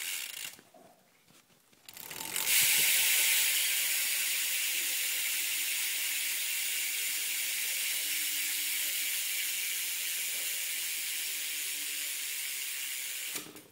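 Primo Remix cassette hub on a BMX rear wheel buzzing with rapid ratchet clicks as the wheel freewheels. The sound starts suddenly about two seconds in, fades slowly, and stops abruptly near the end.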